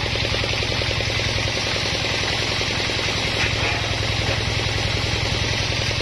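Band sawmill's drive engine running steadily with a fast, even pulsing, idling between cuts.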